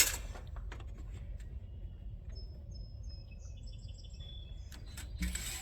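Faint birds chirping in short high notes over a low steady background rumble, with a brief scraping rub near the end.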